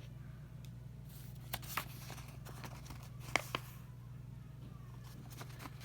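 Sheets of notebook paper rustling as they are handled, with a few sharp clicks, two of them in quick succession about a third of the way in and a louder pair a little past the middle, over a low steady hum.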